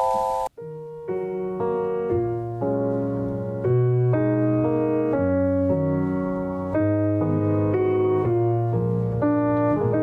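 Background piano music. About half a second in it cuts out briefly, then a new piano piece starts with notes coming about twice a second.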